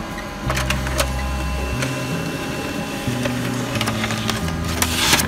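HP LaserJet MFP M28 laser printer running as it feeds a printed page out, with several sharp clicks and a burst of paper rustle near the end. Under it runs background music with a stepping bass line.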